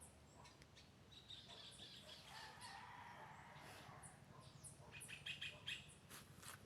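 Faint birds calling: scattered short, high chirps, with a quick run of louder calls about five seconds in.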